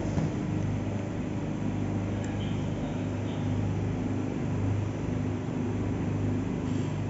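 Steady low mechanical hum, like a motor or engine running in the background, with a strong low drone that swells and eases slightly.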